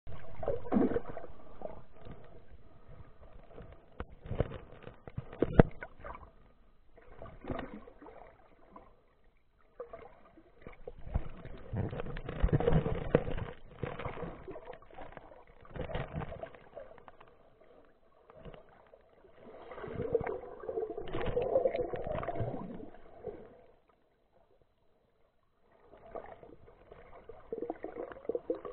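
Water swishing and bubbling picked up by a camera underwater, in irregular surges a few seconds long with a few sharp knocks early on the way, and a short quiet spell near the end.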